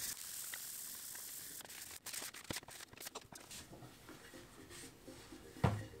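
Fine 1200-grit sandpaper rubbed by hand over a wooden block: a steady, soft, scratchy hiss for about two seconds, then lighter scattered rustles and small taps, with a short low thump near the end.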